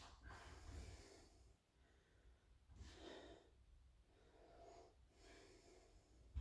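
Faint, slow breathing of a man recovering from exertion, a few soft breaths in and out while he holds a stretch.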